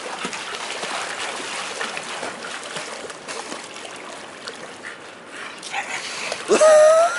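Pool water splashing and lapping, then near the end a bulldog gives one loud whine that rises in pitch.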